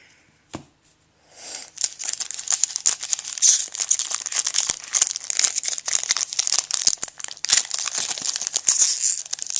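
Foil wrapper of a baseball card pack crinkling and tearing as it is handled and ripped open, starting about a second and a half in, full of small sharp crackles.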